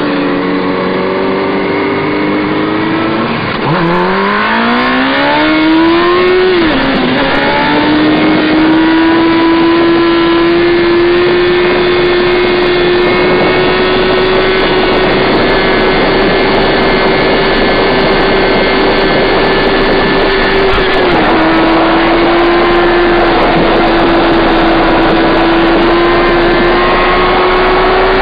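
Motorcycle engine under hard acceleration: the revs climb steeply, drop at a gear change, then hold at a steady high pitch at high road speed, with a brief dip about two-thirds of the way through, over a steady rushing noise.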